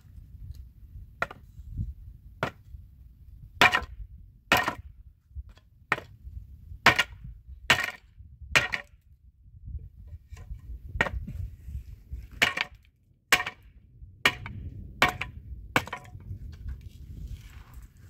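Hatchet chopping along the edge of a wooden plank, a series of sharp wooden strikes roughly once a second at an uneven pace, some harder than others.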